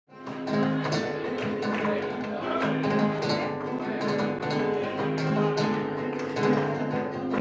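Flamenco band playing the instrumental opening of a sevillanas: strummed acoustic guitar over double bass, with sharp, evenly spaced percussive strokes. The music starts suddenly from silence at the very beginning.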